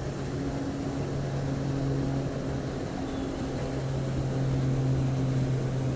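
Steady low mechanical drone: a constant-pitch hum with one higher overtone, unchanging throughout, over a light background hiss.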